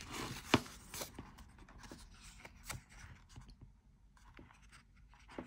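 Hands handling the paper pages of a sticker book: soft rustling and brushing of paper, with a few short sharp ticks, the loudest about half a second in.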